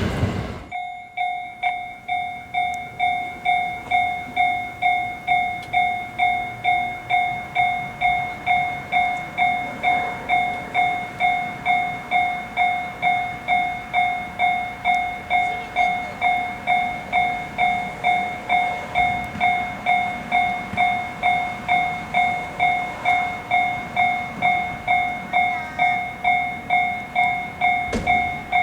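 Japanese railway level crossing warning bell ringing its 'kan-kan' alarm: one ding repeated evenly, about twice a second. A short knock sounds near the end.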